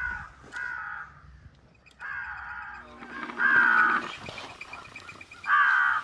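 Crows cawing: a series of harsh, drawn-out caws, about half a dozen, with a short lull a little before the middle and calls coming faster near the end.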